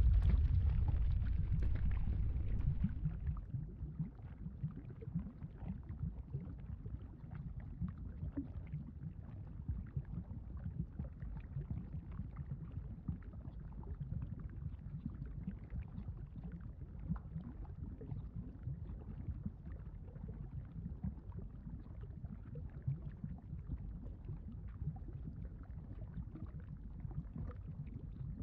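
Volcanic rumble sound effect: a deep rumble that is loud at first and dies down over the first three seconds, then settles into a steady low rumble with a fine crackle, like lava churning underground.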